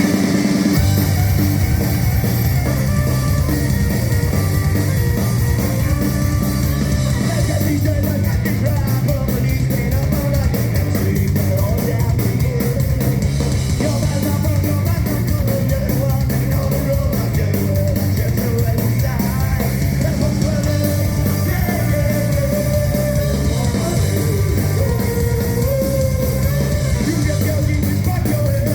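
Folk-punk band playing a loud, fast song live, with singing over a driving, steady beat.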